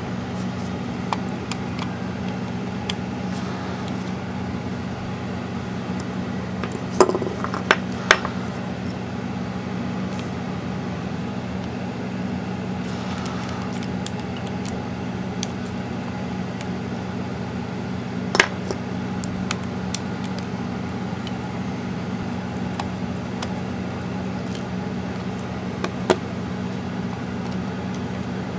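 Small sharp clicks, taps and clinks of a screwdriver against the hard plastic case of a Dell computer mouse as it is handled and unscrewed, a handful of them louder knocks scattered through. A steady low hum runs underneath.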